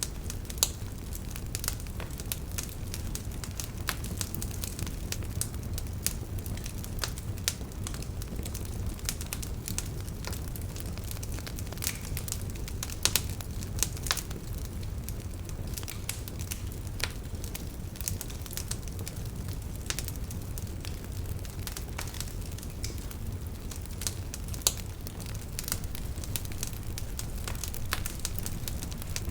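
Campfire burning, with a steady low rumble of flames and irregular sharp crackles and pops from the burning wood.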